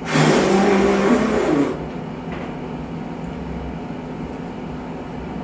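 A loud, breathy vocal outburst from a person lasting under two seconds, followed by a steady hum.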